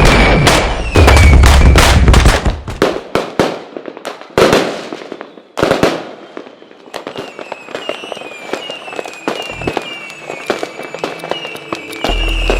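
Fireworks going off: a run of loud bangs in the first few seconds, then a dense crackle of small firecrackers with short high falling whistles over it.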